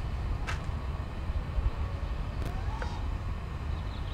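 Wind buffeting an outdoor microphone as a steady low rumble, with two faint clicks.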